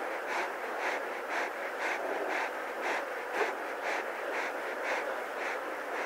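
A lion panting close up, in quick, even breaths about two a second: heat panting to cool off in the heat of the day.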